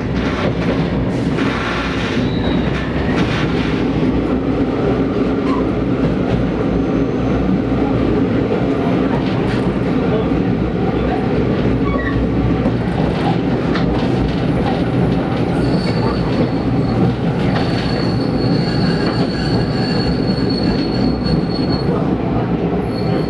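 Train running along the rails, heard from on board: a steady rumble of wheels and running gear. A thin, high wheel squeal comes in about two-thirds of the way through and fades out before the end.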